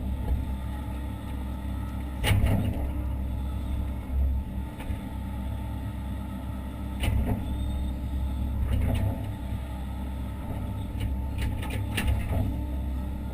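Hitachi Zaxis 130 excavator's diesel engine and hydraulics running steadily, heard as a low drone from inside the cab. Several sharp clanks or knocks come over it.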